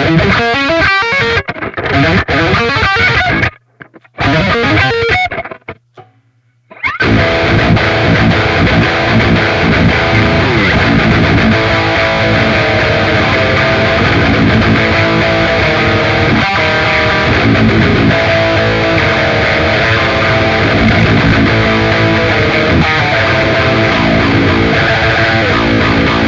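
Distorted electric guitar played through a Fractal Audio Axe-Fx amp modeler. Separate picked notes come first, broken by two short silences, then from about seven seconds in a dense wall of sustained distorted chords.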